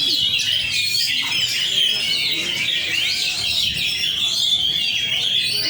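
Oriental magpie-robin (kacer) song: an unbroken stream of rapid chirps and whistled trills, with a murmur of voices underneath.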